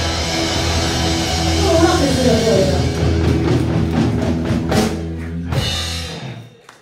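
Live rock band with electric guitar, bass guitar and drum kit playing the closing bars of a song, a run of drum hits ending it; the music stops about six seconds in.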